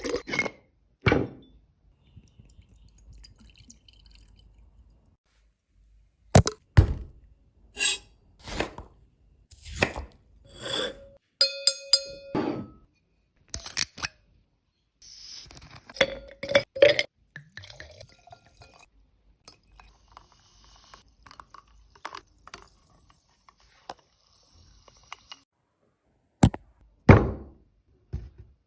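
Glassware and kitchenware being handled: a series of separate knocks and clinks, with one ringing clink about twelve seconds in, a soft hiss through the middle, and two heavy knocks near the end.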